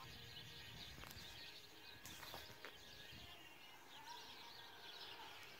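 Near silence: faint outdoor background with a few faint ticks and brief faint chirps.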